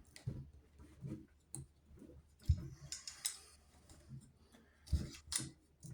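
Light clicks and knocks of crossbow parts being handled, irregular and a few seconds apart, the loudest about halfway through and near the end.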